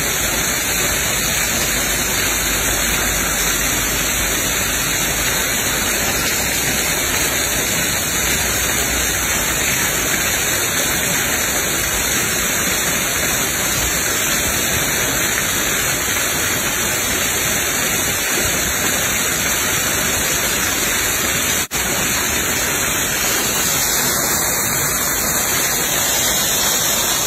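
Steady rushing and splashing of an artificial waterfall pouring down a rock face, dropping out for an instant once near the end.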